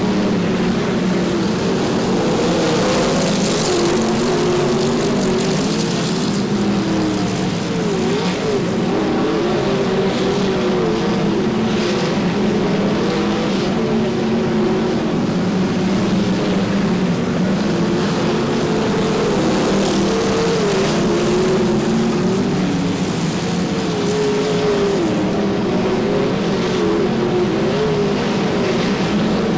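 Field of winged sprint cars with V8 engines racing on a dirt oval, several engines running hard at once. The sound is loud and unbroken, and the engine note keeps rising and falling in pitch.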